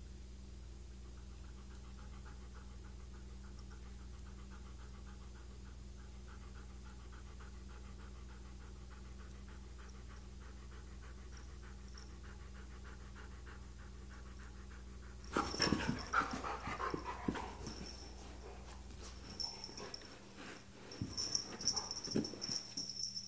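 Siberian husky panting quickly and steadily. About fifteen seconds in, a sudden burst of scuffling and thumping as the husky and cat wrestle on the carpet, with another flurry near the end.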